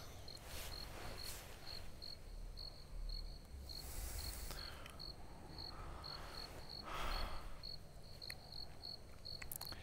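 Crickets chirping, a steady run of short high chirps about two or three a second, as night ambience. A few soft noises rise over them, the loudest about seven seconds in.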